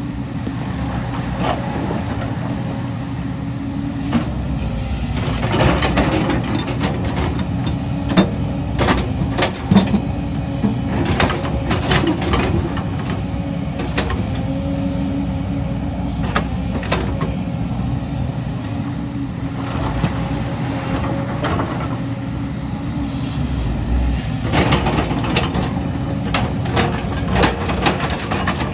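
Excavator's diesel engine running steadily under load, with a hydraulic whine that rises and falls. Bursts of sharp metal clanks and knocks come about five seconds in and again near the end.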